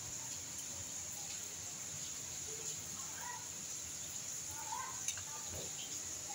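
A few faint, short animal calls, about three seconds in and again near five seconds, over a steady hiss.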